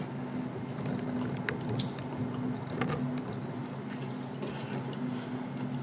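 A steady low hum in a quiet room, with a few faint clicks and taps as a hand handles things on a wooden cutting board.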